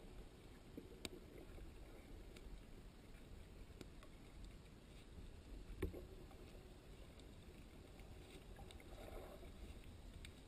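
Near silence underwater, heard through a sealed GoPro dive housing: a faint low rumble of moving water with a few isolated faint clicks, the loudest about six seconds in.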